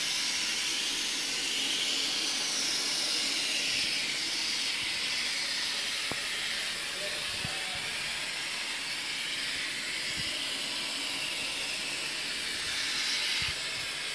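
Aerosol can of spray-on gotelé texture paint hissing steadily as it is sprayed onto a wall, easing slightly near the end.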